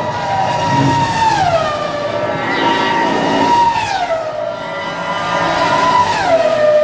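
AI-generated imitation of a Formula 1 car's engine: a high, steady engine note that glides down in pitch three times, about a second in, near the middle and near the end, climbing back between drops.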